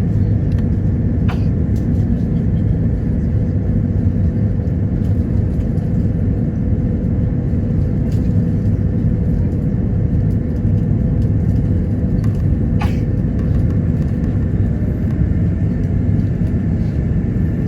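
Steady low rumble of cabin noise inside an Airbus A330-900neo airliner on approach, from airflow and its Rolls-Royce Trent 7000 engines. A faint steady hum runs under it, with a few soft clicks.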